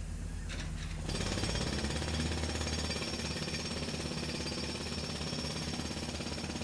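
Jackhammer-like rapid mechanical hammering, fast and steady, growing louder and fuller about a second in.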